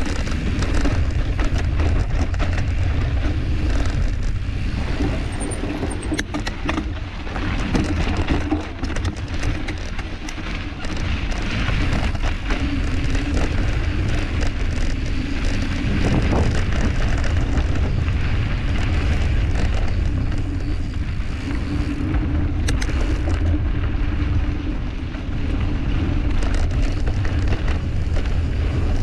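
Mountain bike riding a dirt trail: wind rumbling on the microphone, with a steady rush of tyre noise and scattered knocks and rattles from the bike over rough ground.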